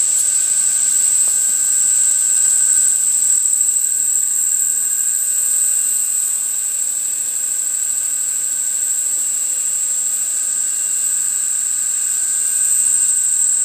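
Three-phase brushless electric motor on a test stand, fed by a speed controller, spinning a propeller at steady throttle: a high steady whine over the rush of air.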